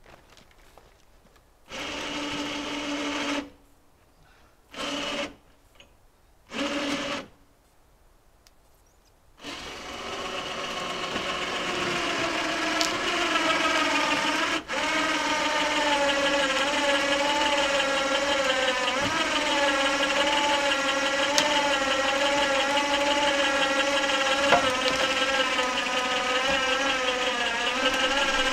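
Truck-bed log hoist motor running in three short bursts, then running steadily from about a third of the way in, its pitch wavering as it lifts a bundle of firewood logs.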